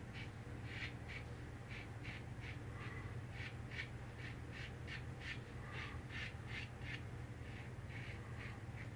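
Antique lather-catcher safety razor scraping through stubble across the grain in short strokes, about two to three a second.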